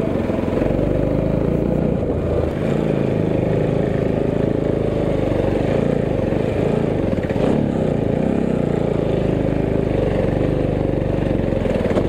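Motorcycle engine running under light throttle while the bike is ridden over a rough, stony dirt track, its pitch rising and falling as the throttle changes. One short knock about seven and a half seconds in.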